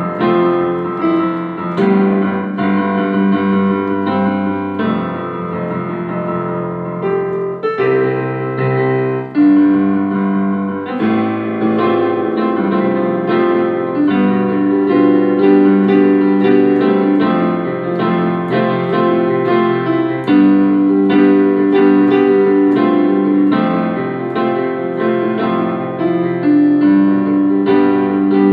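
Background piano music, a steady run of notes with no speech.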